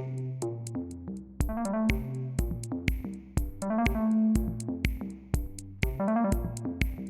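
Background electronic music with a steady drum-machine beat, synthesizer melody and bass.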